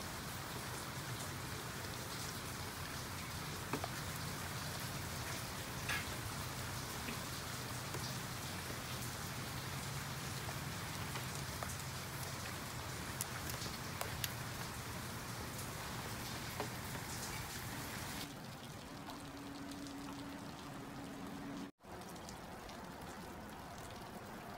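Steady rain falling on a garden, with individual drops ticking close by. It turns quieter about three-quarters through, where the sound briefly cuts out.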